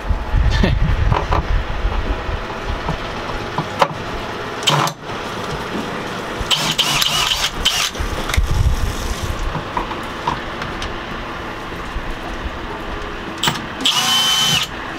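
Cordless drill driving screws through a wooden cleat into a wooden shelf. Its motor whines in two short runs, about six and a half seconds in and near the end, with low knocks and handling thumps in between.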